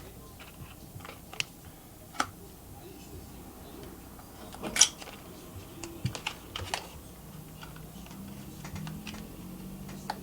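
Scattered light clicks and taps of phone-box packaging and accessories being handled, with a small cluster of clicks about six seconds in and the loudest single click near the middle.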